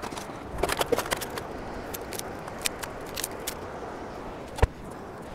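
Camp kitchen gear being handled at the rear drawer setup of a vehicle: a string of light clicks and knocks, with one heavier thump about four and a half seconds in, over a steady background hiss.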